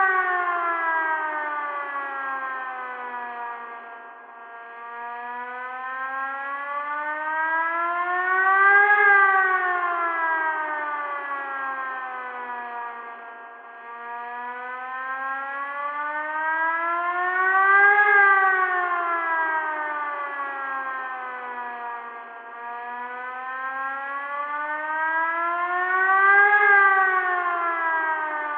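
Tornado warning siren wailing, its pitch gliding up and down in slow cycles about nine seconds long, loudest at the top of each rise.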